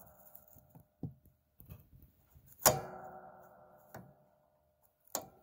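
Light clicks and taps from the recliner's metal mechanism being handled as the release cable is worked free, with one sharp metallic clink about two and a half seconds in that rings on for a second or so.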